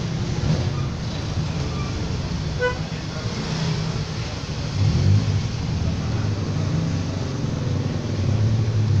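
Steady low rumble of road traffic, with a brief high beep about two and a half seconds in.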